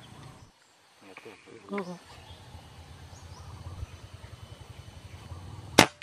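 A single sharp air rifle shot near the end, fired at munias feeding in the rice. Before it there is a low, fast, even throbbing.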